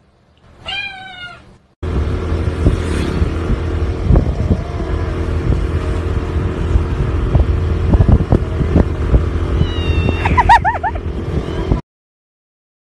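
Motor scooter running along a road, with engine hum and wind noise, and a cat meowing a few short times near the end. A single cat call sounds about a second in, before the riding noise starts.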